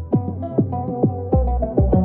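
Background electronic music with a steady beat of deep kick drums that drop in pitch, under a sustained melody.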